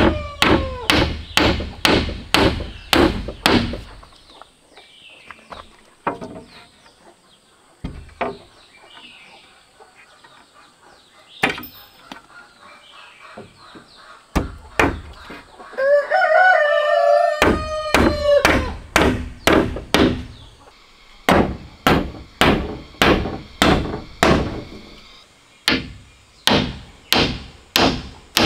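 Hammer driving nails into wooden slats: quick strikes, about two to three a second, that stop after a few seconds, leave a gap broken by a couple of single knocks, and then resume. A rooster crows once a little past the middle, just as the hammering starts again.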